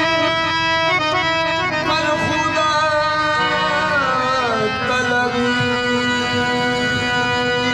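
Harmonium playing a held, reedy melody in live traditional music. About four seconds in, a male singer's voice slides down in a long falling glide over it.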